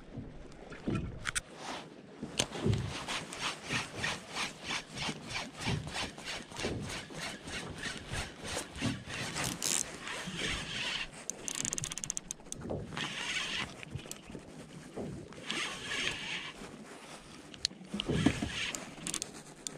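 Spinning reel being cranked, a steady run of ticks about four a second, followed in the second half by several bursts of hiss.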